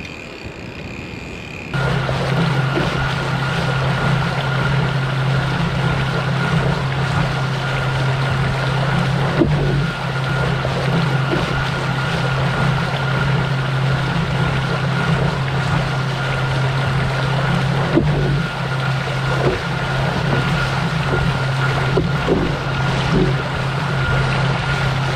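A steady motor hum starts abruptly about two seconds in and holds even: a strong low drone with a thin high whine above it and wind rush.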